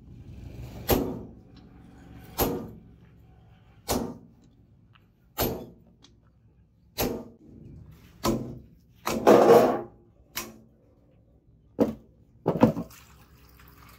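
Heavy hammer strikes on a set tool held against red-hot leaf-spring steel on a steel post anvil, about ten blows at roughly one every second and a half. A longer, louder noisy burst comes about nine seconds in.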